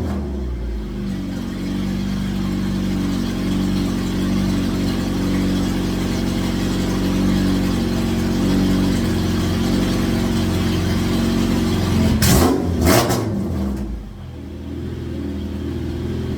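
K-swapped Honda Civic's engine running at a steady idle, with two short throttle blips near the end.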